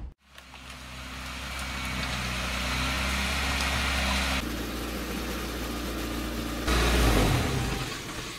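Truck engine idling steadily, fading up over the first few seconds. Its tone changes abruptly about four seconds in, and near seven seconds it jumps louder and deeper before easing off.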